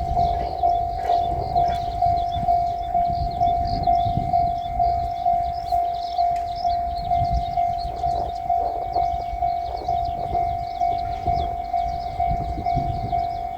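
Japanese level-crossing warning bell ringing, a quick, even, repeating electronic ding on one pitch, signalling that a train is approaching. A low rumble runs underneath.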